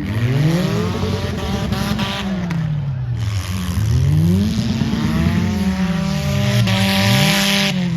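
Several demolition derby car engines revving up and down at once, their pitches rising and falling over one another, with bursts of loud hiss about two seconds in and again near the end.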